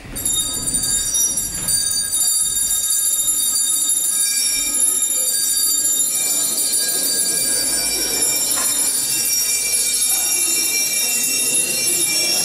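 Live folk-ensemble music starts suddenly, dominated by a cluster of steady, high ringing tones held throughout.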